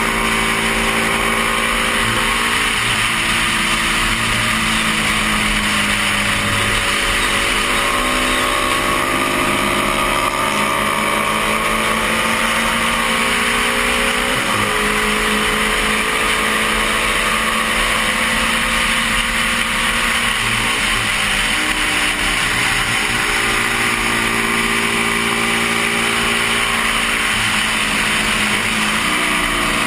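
The parallel-twin engine of a 1972 Honda CB350 racing at high revs, heard over heavy wind rush on a helmet camera. Its pitch rises and falls with the throttle and changes abruptly three times: about halfway, about two-thirds of the way in, and near the end.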